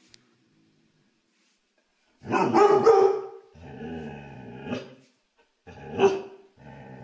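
Dog barking and growling: a loud bark about two seconds in, a drawn-out growl, then a second sharp bark about six seconds in followed by more growling.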